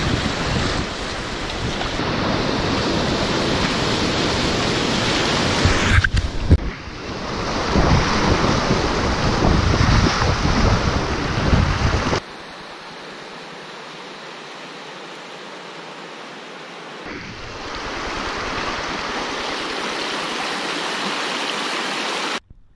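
River rapids rushing and splashing around and over a packraft's bow, with wind buffeting the action camera's microphone. The noise drops sharply about twelve seconds in and swells back about five seconds later.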